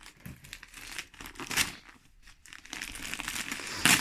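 Gift wrapping paper crinkling and being torn, with two sharper rips, one about a second and a half in and a louder one near the end.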